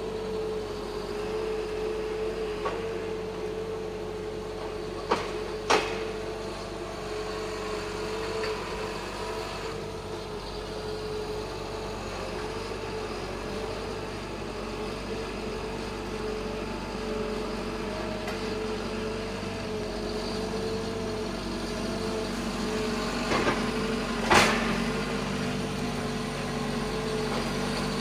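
John Deere 810E forwarder's diesel engine running steadily under a steady whine as the loaded machine drives. Sharp clanks come twice about five seconds in and again, louder, near the end.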